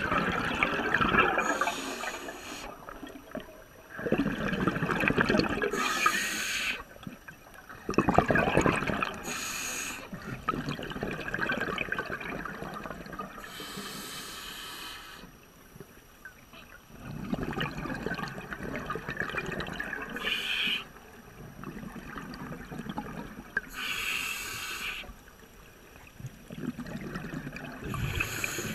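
Scuba diver breathing through a regulator underwater: short hissing inhalations alternating with longer bubbling exhalations, about seven breaths a few seconds apart.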